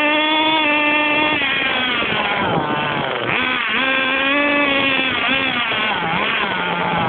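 Small nitro RC car engine running at high revs, its high-pitched note rising and falling as the throttle is worked, easing off about a second and a half in and again near the end. Heard up close from a camera mounted on the car.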